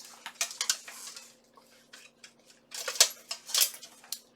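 Steel armour plates clinking and rattling against each other as the armour is handled and moved: a string of sharp metallic clinks, loudest about three seconds in.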